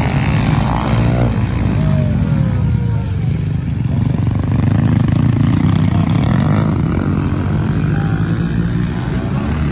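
Several small pit bike engines revving hard as the riders pass close by, the pitch of a passing bike falling twice in the first few seconds, over the steady drone of more bikes further down the track.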